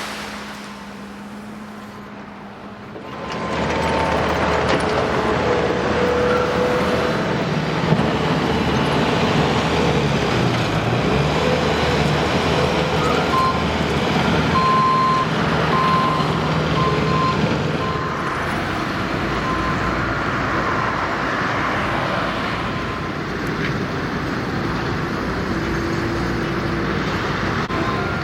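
Road traffic and a heavy truck running past, a steady dense rumble that swells in about three seconds in. About halfway through comes a short run of evenly spaced high beeps.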